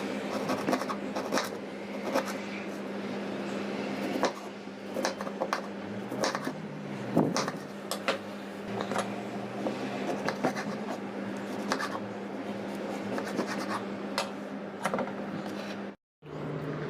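Kitchen utensils scraping and clicking against food and surfaces in irregular strokes, over a steady low hum. The sound drops out briefly near the end.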